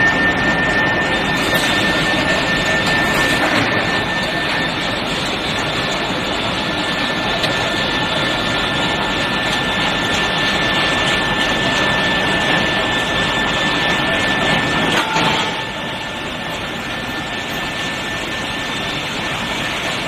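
Steady, loud machinery noise from a hot-rolling line for round steel bar fed by an induction furnace. A steady high-pitched whine runs through it and cuts off about three quarters of the way through. A brief lower tone follows, and the overall noise drops slightly after that.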